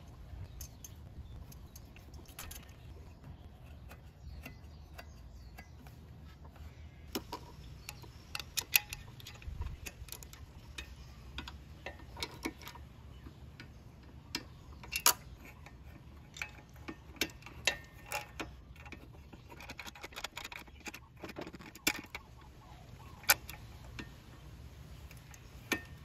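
Irregular metallic clicks and clinks of small hand tools, a ratchet and sockets, while bolts are hand-tightened on a scooter's rear end. The clicks come in scattered bunches from a few seconds in, over a low steady hum.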